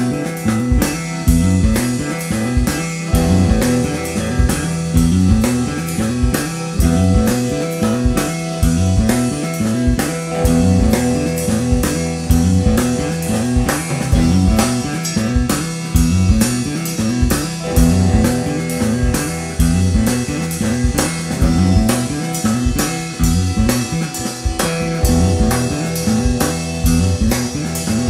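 Instrumental rock band playing live: a drum kit keeping a steady beat under an electric bass line and a hollow-body electric guitar.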